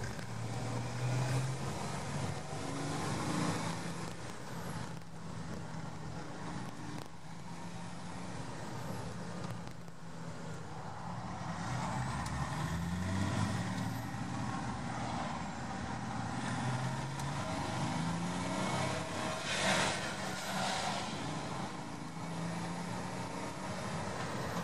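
BMW M57 straight-six turbodiesel in a Land Rover, heard from inside the cab while driving: the engine note climbs and drops several times as it pulls through the six-speed gearbox over steady road noise. A brief rush of noise about twenty seconds in.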